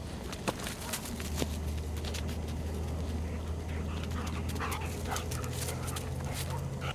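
A dog making short cries in the second half, over a steady low rumble.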